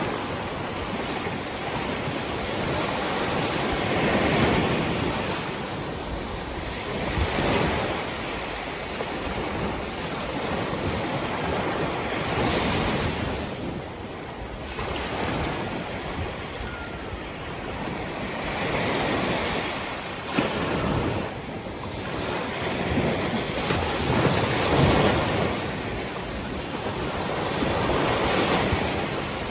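Surf breaking on a beach, each wave rising and washing in every few seconds over a steady background wash of water.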